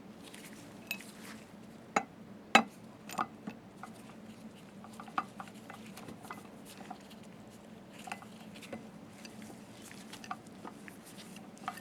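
Scattered small metallic clicks and clinks of slit lamp parts being handled as the microscope arm is fitted on its shaft, with two sharper knocks about two seconds in.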